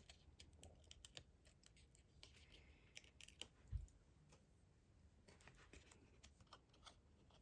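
Faint, scattered small clicks and light scratchy paper handling as foam adhesive dimensionals are peeled and pressed onto a cardstock card front, with one soft low thump a little past halfway.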